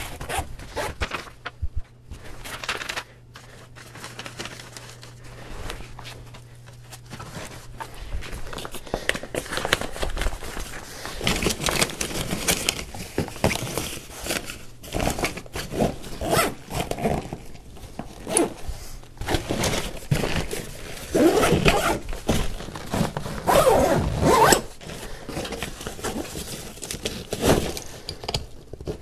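Gear being packed into a large fabric LBT loadout bag: rustling and crinkling of cloth and packed items, with scraping as things are pushed in. Later the bag's zip is pulled shut.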